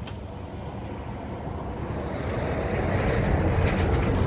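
Diesel engine of a John Deere 5603 tractor idling with a steady low rumble, mixed with wind buffeting the microphone; the noise grows louder about halfway through.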